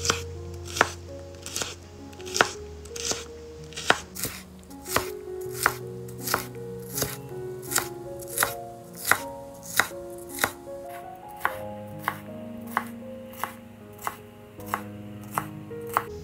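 A knife chopping on a cutting board in slow, even strokes, about one and a half a second, over background music with held notes.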